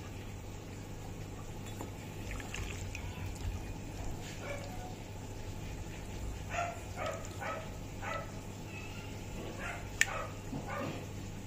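A dog barking in two short runs of about four barks each, one starting about six and a half seconds in and another near the end, with a single sharp click about ten seconds in, over a steady low hum.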